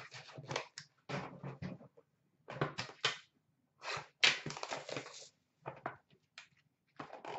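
Cardboard trading-card box and its wrapping being handled and opened by hand, heard as clusters of short rustles, scrapes and crinkles with brief pauses between them.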